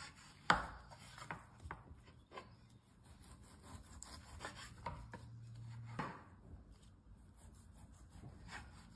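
Chef's knife sawing through a raw rack of pork ribs and knocking down onto a wooden cutting board, with a few sharp knocks. The loudest knock comes about half a second in and another about six seconds in.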